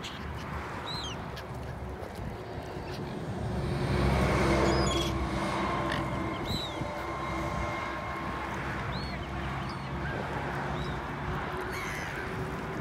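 Short, high bird chirps recurring every second or so over outdoor background noise. A motor vehicle's steady engine hum swells about four seconds in, is loudest soon after, and fades out by about eleven seconds.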